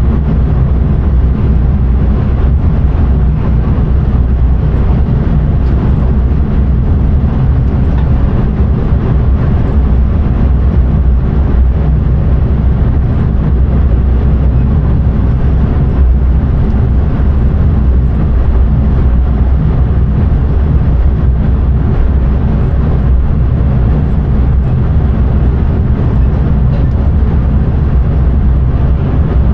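Steady low rumble of an intercity train running along the line, heard from inside the driver's cab.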